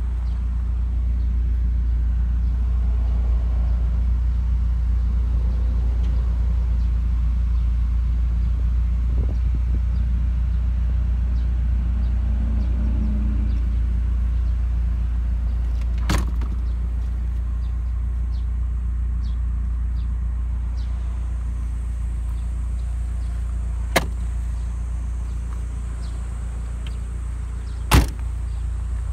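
Nissan Silvia S13's engine idling, a steady low drone. There are a few sharp knocks over it, the loudest near the end.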